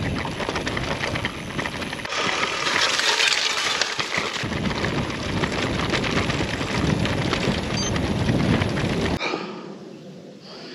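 Orro Terra C gravel bike ridden over a rough grassy footpath, heard from its handlebars: steady tyre rumble with a dense rattle and clatter as the bike jolts over the uneven ground. It cuts off abruptly about nine seconds in, leaving a much quieter outdoor background.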